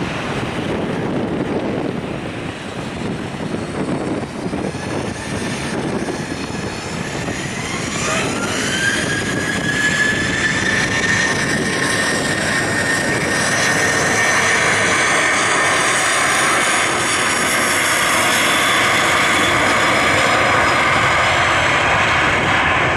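Boeing 737-700's CFM56-7B turbofan engines spooling up to takeoff power: about eight seconds in a whine rises and levels off into a steady high whine over the jet noise, which grows louder.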